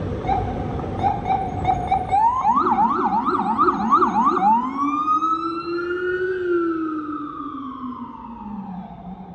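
Emergency vehicle siren cycling through its modes: short repeated chirps, then about two seconds of fast yelping sweeps, then one long wail that rises and falls, fading near the end.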